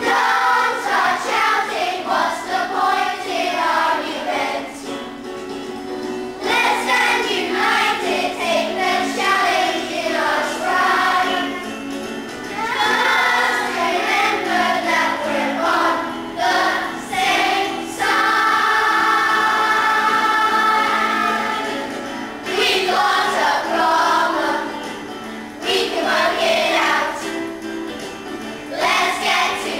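A group of children singing a song together in unison over musical accompaniment, with one long held note past the middle.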